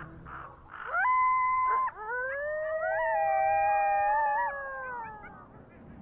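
Wild canids howling: one howl rises quickly into a held note about a second in, then a longer chorus of several overlapping howls at different pitches holds and slowly falls away near the end.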